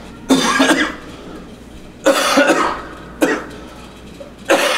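A man coughing hard four times over a few seconds, each cough a sudden loud burst, the third one short.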